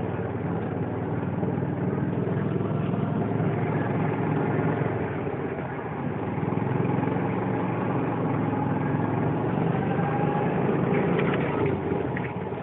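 Yamaha Rhino side-by-side's single-cylinder engine running steadily, its level swelling and easing a little and dropping slightly near the end.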